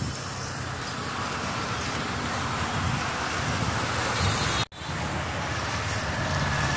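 Steady street traffic noise with a low engine drone, broken by a split-second dropout about two-thirds of the way through.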